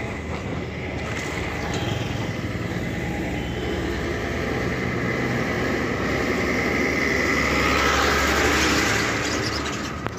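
A heavy diesel goods truck approaching and driving past, engine and tyre noise growing to a peak about eight seconds in, then fading as it goes by.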